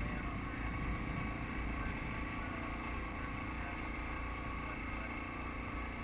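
ATV engine running steadily under load as the machine climbs a hill trail, a low rumble with a steady whine above it.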